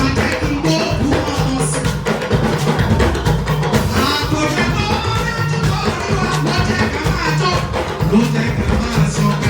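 Live church music: an anthem sung by voices over drums and hand percussion, with a steady beat.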